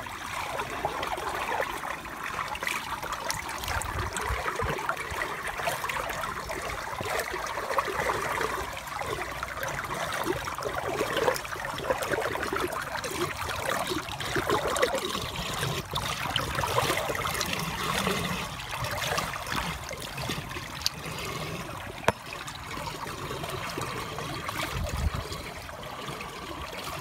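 Water trickling steadily in the pool's edge overflow gutter beneath the plastic grating, with a few brief clicks.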